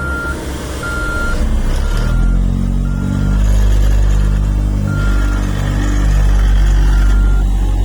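Heavy construction vehicle's diesel engine running, louder from about two seconds in, while its reversing alarm beeps steadily about once a second.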